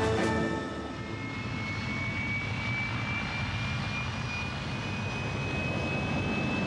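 General Dynamics F-111's TF30 turbofan jet engines running at high power with afterburner: a steady rush with a high whine that climbs slowly in pitch. Music fades out in the first second.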